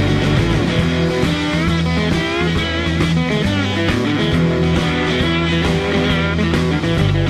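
Live blues-rock band playing: an electric guitar lead with bending, wavering notes over a steady bass line.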